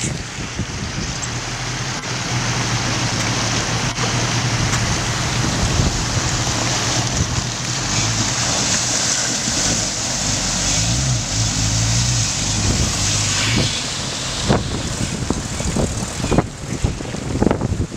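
Jeep Wrangler engine running steadily as it drives into and through a river, over rushing water and wind noise on the microphone. The engine note wavers about two-thirds of the way in. Near the end come a few sharp knocks and crunches.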